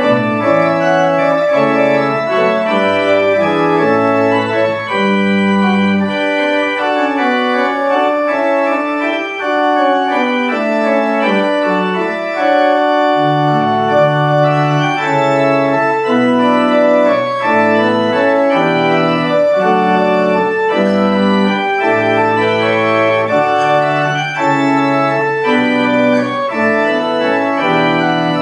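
Church organ playing a postlude at the close of the service: sustained chords moving steadily from one to the next. The deep bass notes drop out for several seconds in the middle and then come back.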